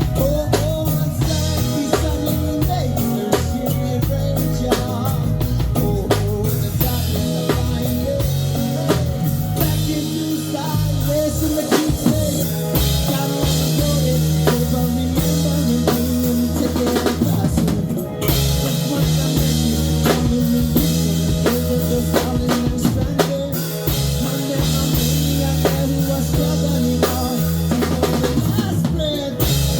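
Live band playing an instrumental passage of a song, with a drum kit's snare, rimshots and bass drum keeping a steady beat over a sustained bass line.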